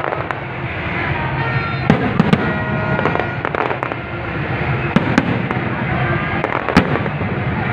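Fireworks display: aerial shells bursting with sharp bangs in irregular succession over a steady background din, the loudest reports coming about two, five and seven seconds in.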